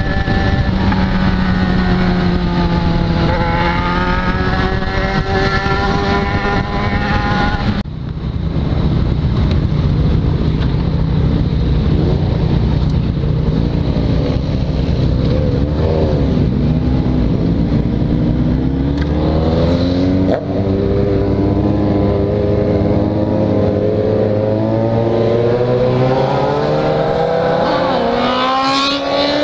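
Yamaha XJ6 inline-four motorcycle engine running at a steady cruise with wind rush. After a cut, other motorcycles run nearby, and from about two-thirds of the way through the engine pitch climbs again and again as the bike accelerates through the gears.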